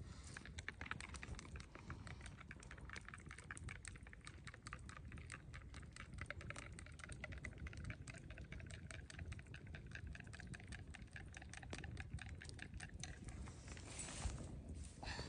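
Rapid, irregular light clicking or tapping, many small ticks a second, thinning out near the end.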